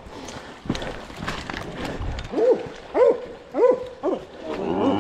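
Deer-tracking bay dogs barking at a wounded buck they are holding at bay: a quick run of about five short barks, each rising and falling in pitch, coming in the second half.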